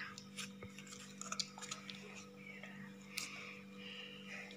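Faint wet stirring in a steel pot of liquid soap mixture, with a few light clicks of the utensil against the pot, over a steady low hum.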